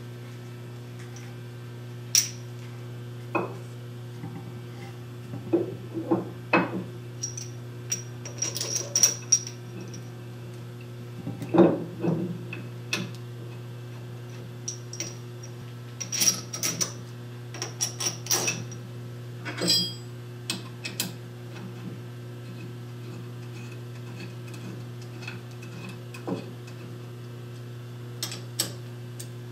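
Irregular metallic clinks and knocks of a steel lathe chuck being seated on its mounting plate and its bolts worked with an Allen wrench, over a steady low hum.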